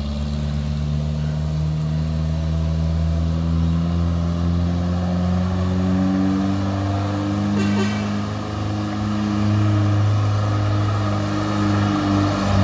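Heavily loaded Mitsubishi L300 pickup's engine labouring up a steep climb in a low gear, revs rising slowly and getting louder as it comes closer.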